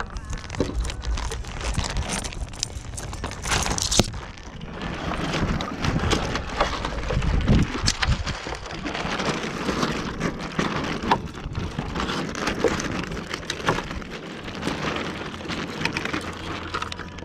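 Water splashing and lapping against a model sailboat's hull, with rough wind noise and scattered sharp knocks and crackles as the sail and rig are handled.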